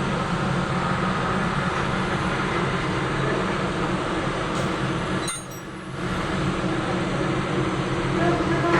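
Steady running hum of a CNC machine, a low drone under an even hiss, which drops away for about a second around five seconds in and then returns.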